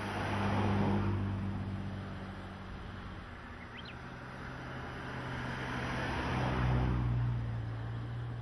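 Engine noise with a steady low hum that swells and fades twice, about a second in and again near the end. The hum's pitch shifts slightly in between. A brief faint chirp sounds about four seconds in.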